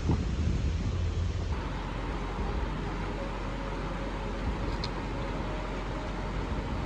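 A vehicle's low rumble on a rough dirt track for about the first second and a half, then a cut to the steady rush of a fast, turbulent mountain river.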